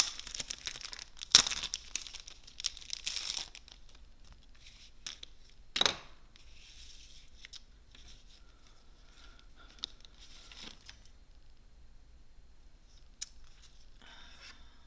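Craft paper rustling and crinkling as sheets of card stock and patterned paper are handled, with a cluster of loud sharp rustles in the first few seconds and one crisp crackle about six seconds in. After that, only faint handling noises.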